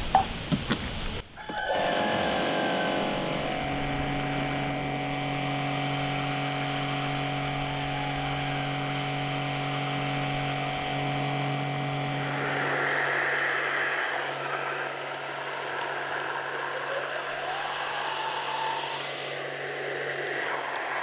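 After a moment of handling noise, an electric pressure washer starts about two seconds in and runs with a steady hum, its jet flushing water into beef lungs in a steel basin. A hiss of spray grows louder about thirteen seconds in. The lungs are being flushed repeatedly until they thin out.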